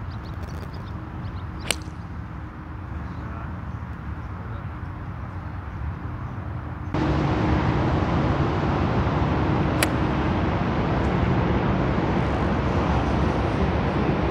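A sharp click about two seconds in, a golf club striking the ball, over a steady outdoor background rumble. A second sharp click comes near ten seconds, after the background suddenly grows louder about seven seconds in.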